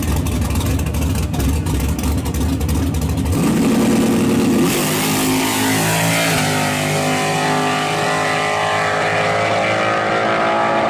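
Race-truck engines rumbling at the starting line with rapid popping, revving up about three seconds in, then launching in a blast of noise near the five-second mark. The engines pull hard down the drag strip, their pitch climbing steadily.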